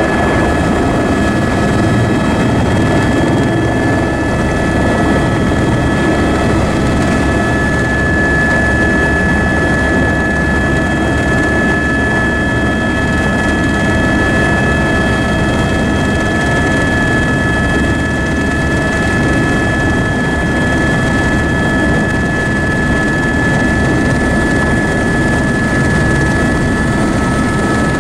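Tour helicopter's turbine engine and rotor running steadily, heard from inside the cabin: a dense drone with a steady high whine over it.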